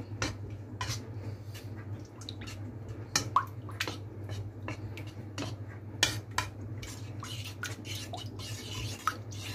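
Black plastic spoon stirring thick coconut milk in a nonstick wok, with irregular small clicks of the spoon against the pan and wet dripping sounds, over a steady low hum.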